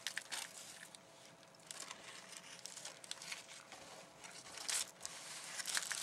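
Tissue paper rustling and crinkling in irregular short crackles as hands move a beaded row counter around on it.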